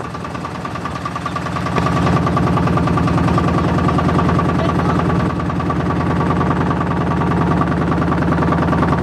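Motorboat engine running steadily with a fast, even beat; it gets louder about two seconds in.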